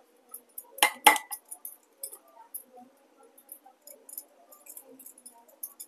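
Stainless steel bowls clinking together twice about a second in, each with a short ring, followed by faint scattered taps and handling noises as gram flour is tipped into the bowl.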